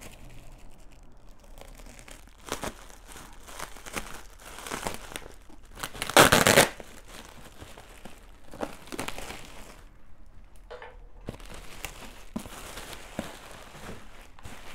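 Thin plastic bag crinkling and rustling as it is pulled and torn open around a cardboard shoe box, with one loud burst about six seconds in.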